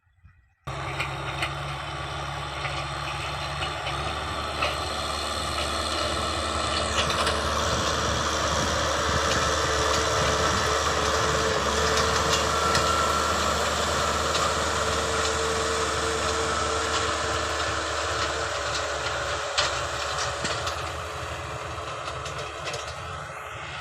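Heavy farm machine's engine running steadily, cutting in suddenly just after the start, growing louder toward the middle and easing off near the end.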